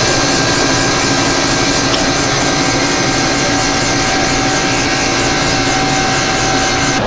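Soft-serve ice cream machine running: a steady, loud mechanical hum with several held whining tones.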